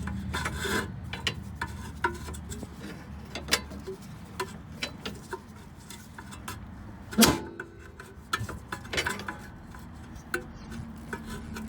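Irregular metallic clicks and knocks from tools and suspension parts being worked while fitting a car's sway bar end link, with one sharper, louder knock about seven seconds in.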